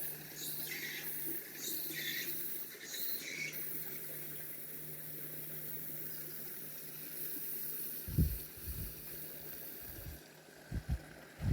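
Outdoor nature ambience: a few short bird chirps in the first few seconds over a steady high insect-like hiss and a faint low hum, with low wind buffets on the microphone about eight seconds in and again near the end.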